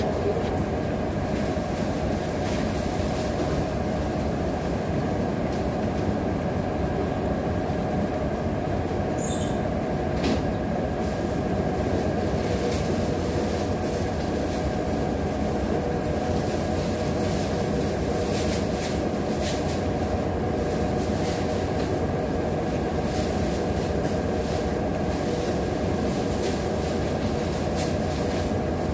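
Steady low rumble and hiss of machinery noise, even and unbroken with no beat, with a few faint clicks over it.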